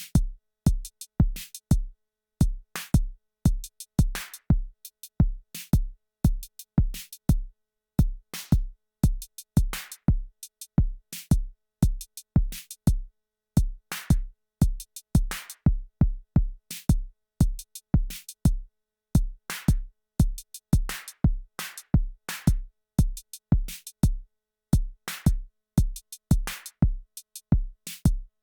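Arturia DrumBrute Impact analog drum machine playing a steady sequenced pattern. A low kick drum hits about three times a second, with short sharp clicks between the kicks and a longer noisy snare-like hit about every second and a half.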